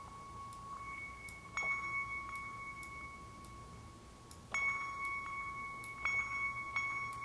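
Bell-like synthesizer patch sustaining a single high note in octaves, washed in delay echoes and reverb. New strikes come about a second and a half in, at about four and a half and six seconds, and again near the end.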